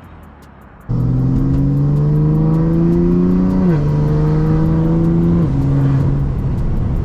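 BMW F80 M3's S55 twin-turbo inline-six through an equal-length exhaust, coming on suddenly about a second in and climbing in pitch under hard acceleration. The pitch drops sharply twice as the dual-clutch gearbox upshifts, then holds steady.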